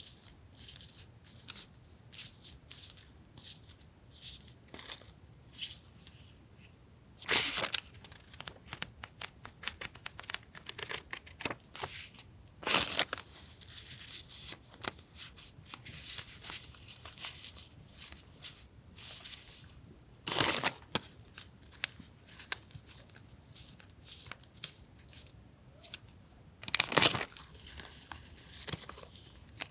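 Paper being handled: light rustling, crinkling and small taps of sheets, broken by four louder tearing sounds spread a few seconds apart.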